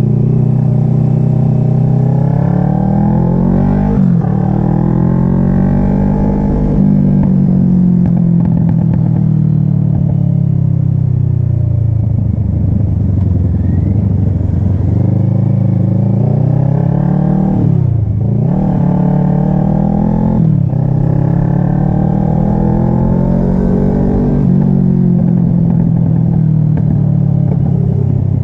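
Kawasaki ER-6n parallel-twin engine being ridden, its pitch rising and falling with the throttle, with quick drops and recoveries at gear changes about four seconds in and twice near the end.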